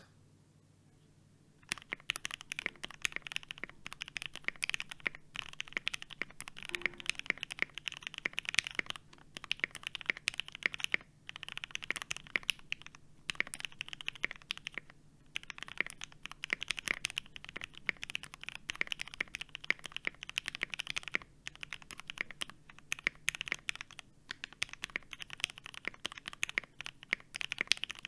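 Fast typing on a Tofu65 mechanical keyboard with Gateron Full Milky Black linear switches on a polycarbonate plate and GMK keycaps: a dense run of key clacks starting about two seconds in, with a few brief pauses.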